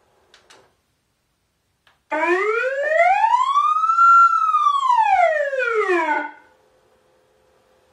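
Zura 1120 electronic police siren sounding one slow wail: the pitch rises for about two seconds and falls back over the next two. It starts about two seconds in, after a short click about half a second in.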